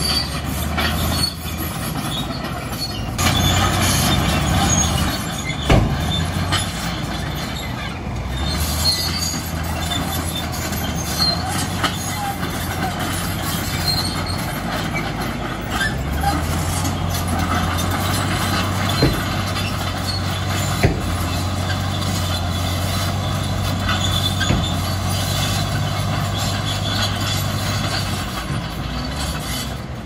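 Shantui crawler bulldozer's diesel engine running under load, with squeaks and clanks from its steel tracks and occasional sharp knocks. The engine note steps up a little about halfway through.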